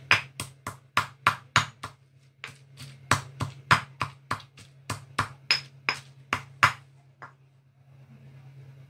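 Stone pestle pounding dried red chillies in a stone mortar, about three strikes a second with a short break about two seconds in, stopping about seven seconds in. A steady low hum runs beneath.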